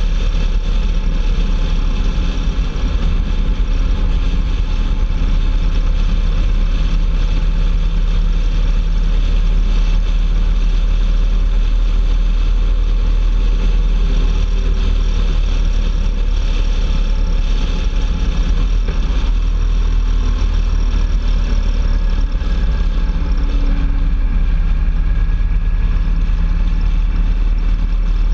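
Touring motorcycle's engine running steadily at road speed, heard from a camera mounted on the bike, under a constant rush of wind and road noise.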